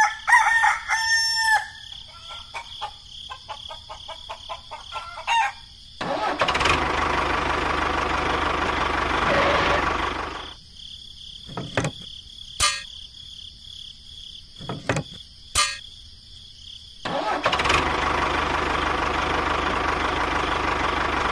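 A rooster crows once at the start. Then, after a few clicks, a tractor engine runs, drops away for several seconds with a few sharp clicks, and starts running again near the end.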